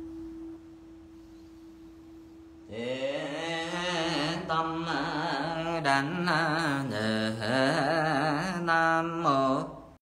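A steady bell tone fades away, then from about three seconds in a single voice chants in a drawn-out, melodic Buddhist recitation, its pitch sliding and wavering, stopping just before the end.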